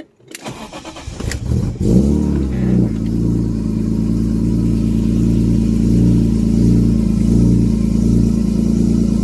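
BMW S54 straight-six cranking and catching about two seconds in, then settling into a steady, raised cold-start idle with no valve tick, its out-of-spec valve clearance freshly adjusted.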